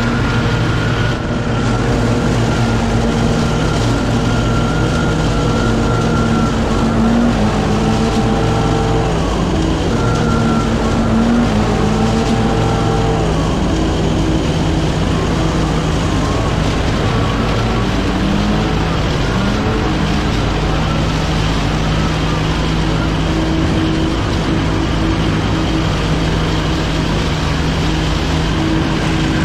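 A truck-mounted leaf vacuum and several backpack leaf blowers running at once: a steady, loud engine din, with engine pitches rising and falling as the blowers are throttled up and down.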